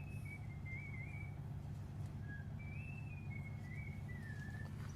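A person whistling a slow, wandering tune in held notes and short glides, over a steady low hum.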